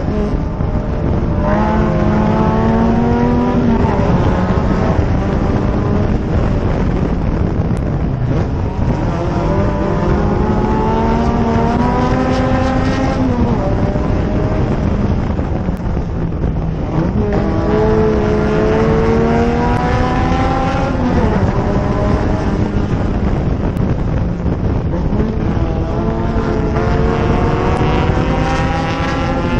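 Race car engine, heard from a camera on the hood, climbing in pitch as it accelerates down each straight and dropping back into the turns, about four times. A steady rush of wind and road noise runs beneath it.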